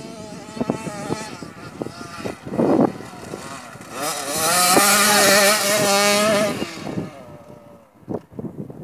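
A dirt bike engine revving as it comes up and passes close by, the pitch rising and falling. It is loudest from about four to six and a half seconds in, then fades away.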